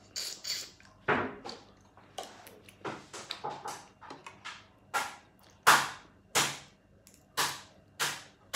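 Crab being eaten by hand: shell cracking and crunchy chewing, heard as a string of sharp crackling snaps that come more regularly, about one every two-thirds of a second, in the second half.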